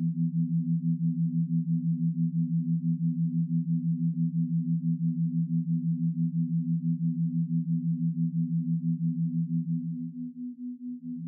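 Two low, steady synthesized sine tones pulsing on and off evenly, about four to five times a second, as in a brainwave-entrainment tone track. The lower tone fades out near the end while the higher one carries on.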